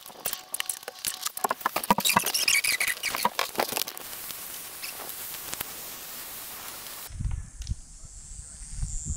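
Clattering, clicking and scraping of an aluminium door threshold being set down and shifted into place on a concrete sill, many quick knocks in the first few seconds. About seven seconds in the sound changes abruptly to low rumbling thumps.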